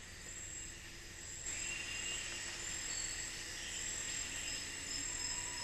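A chorus of insects calling in steady, high held tones, growing louder about a second and a half in.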